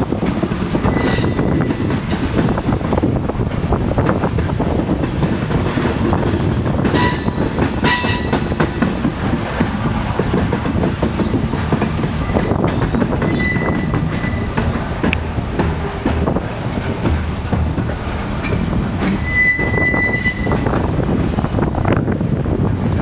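Freight cars (covered hoppers and tank cars) rolling past, a steady rumble with clatter of wheels over the rail. Brief high-pitched wheel squeals come several times, the longest a little before the end, and a couple of sharp clanks sound about a third of the way in.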